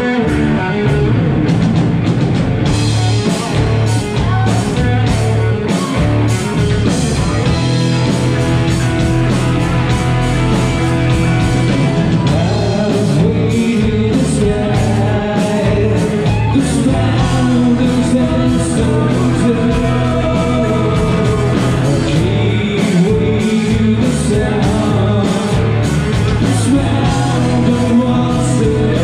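Live rock band playing with singing: electric guitars, bass and drum kit, with drums and cymbals coming in about two and a half seconds in.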